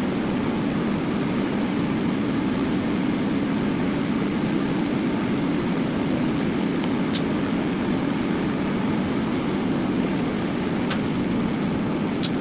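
A steady, unchanging rushing drone with a few faint clicks.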